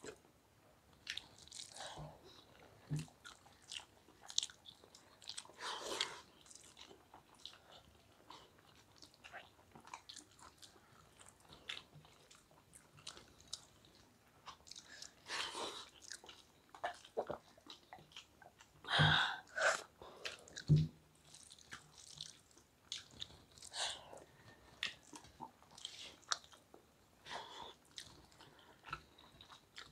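Close-up chewing of mouthfuls of rice and egg curry, with wet mouth clicks and smacks coming at irregular intervals. A couple of sharper knocks sound about two-thirds of the way through.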